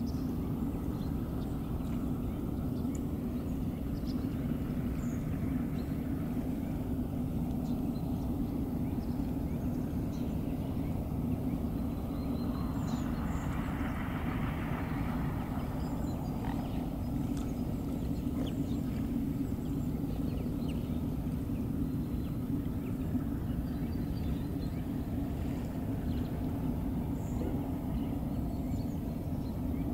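Steady low outdoor rumble with faint, scattered waterbird calls; a hiss swells and fades about halfway through.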